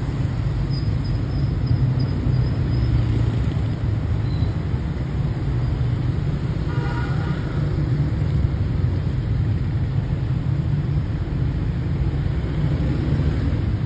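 Steady low rumble of city street traffic, with a brief higher-pitched tone about halfway through.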